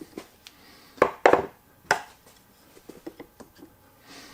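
Tools being handled on a wooden workbench: three sharp knocks about a second in, then a few lighter clicks.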